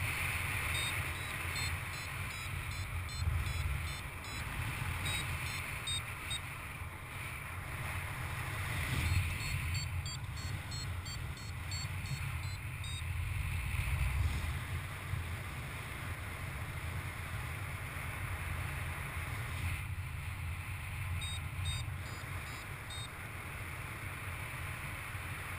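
Airflow rushing over the microphone of a paraglider in flight, with a variometer giving three runs of quick, high beeps, about three or four a second. The beeping signals that the glider is climbing in lift.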